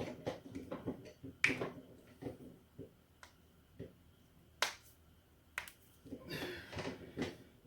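Human joints being deliberately cracked: a run of sharp pops, the loudest about a second and a half in, near the middle, and a close pair a little later, with smaller pops between.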